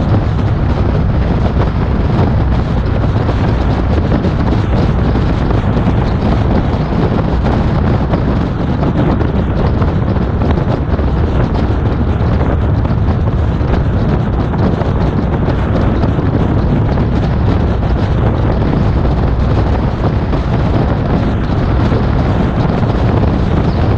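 Steady wind rush on the microphone of an action camera mounted outside on a moving car's bonnet, a loud, even noise without a clear engine note or separate events.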